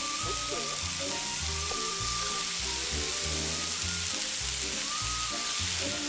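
Kimchi pancake frying in oil in a pan, a steady sizzle.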